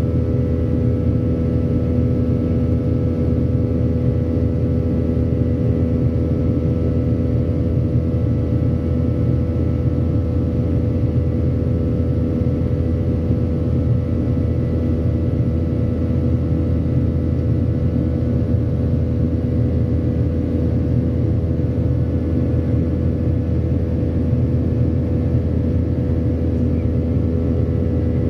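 Cabin noise inside a Boeing 737-800 climbing out after takeoff: the CFM56-7B turbofan engines' steady drone, a deep rumble with several steady whining tones over it.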